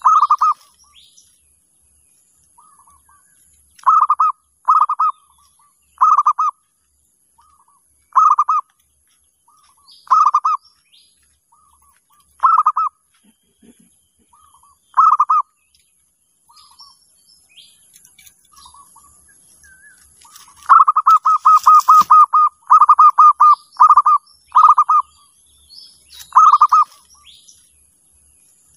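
Zebra doves (perkutut) cooing: short bursts of quick coo notes about every two seconds, then a long run of rapid phrases about three-quarters of the way through. Faint chirps of other small birds sound in the background.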